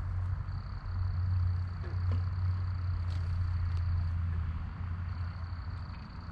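Night insects trilling steadily at one high pitch, breaking off briefly twice, over a steady low hum. A few faint ticks and rustles of footsteps in brush.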